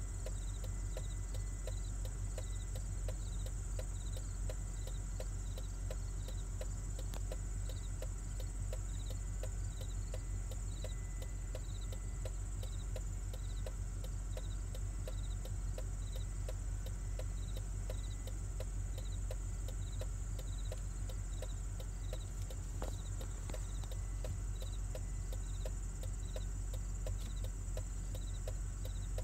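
Outdoor insect chorus: a steady high-pitched drone with short high chirps repeating evenly about every half second or so, over a steady low rumble.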